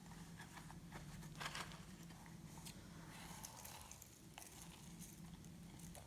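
Faint sticky crackles and small clicks of glossy slime being squished and stretched by hand.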